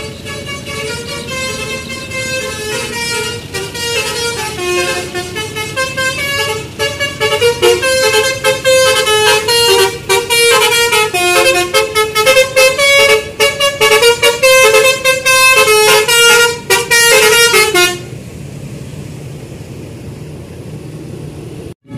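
Basuri telolet bus horn playing a tune of quick stepped notes, louder and more rapid from about seven seconds in, cutting off suddenly about eighteen seconds in. Steady background noise follows.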